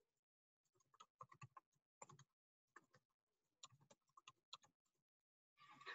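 Faint computer keyboard typing: short runs of keystrokes with brief pauses between them.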